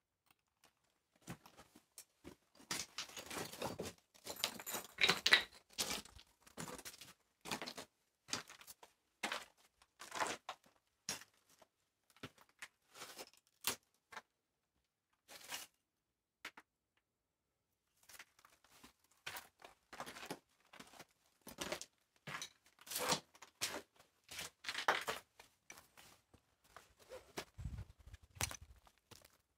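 Footsteps crunching and scraping over loose broken concrete and rubble, irregular, pausing for about two seconds midway, with a few low bumps near the end.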